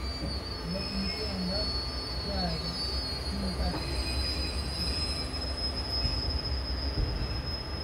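Express passenger train's wheels squealing against the rails: a high, steady, slightly wavering screech over the low rumble of the rolling coaches. The squeal dies away near the end.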